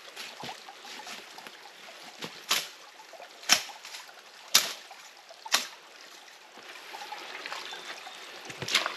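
Four sharp snaps about a second apart, dead sticks cracking among the deadfall, over a faint, steady trickle of running water.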